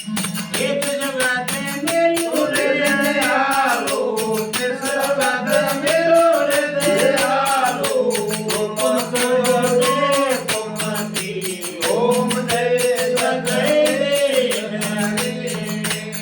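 Devotional bhajan music: a voice singing a bending, ornamented melody over a steady drone from the desi veena, with a fast, even percussion beat throughout. The voice pauses briefly about twelve seconds in.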